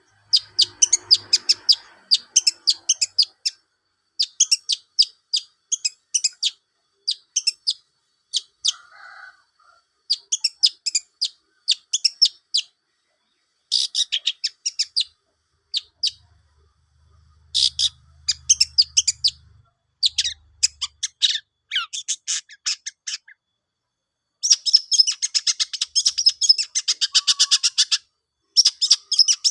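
Long-tailed shrike (cendet) singing a fast, dry chattering song of rapid high notes in phrases a few seconds long, with a long unbroken run of chatter near the end.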